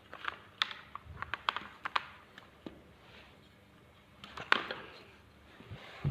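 Scattered light clicks and small knocks of objects being handled, with a louder knock about four and a half seconds in.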